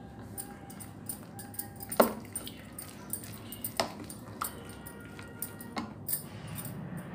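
A metal spoon mixing marinated chicken pieces with egg, cornflour and spices in a bowl: wet stirring with sharp clinks of the spoon against the bowl, the loudest about two seconds in and others near four and six seconds.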